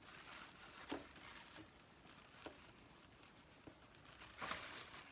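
Faint handling sounds of eyeshadow swatching: soft rubbing and rustling from fingers on the powder palette and skin, with a few light taps, the loudest rustle near the end.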